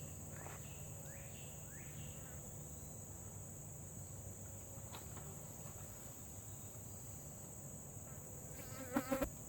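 Insects trilling in a steady high-pitched drone, with a few short rising chirps in the first couple of seconds and a brief pitched sound near the end.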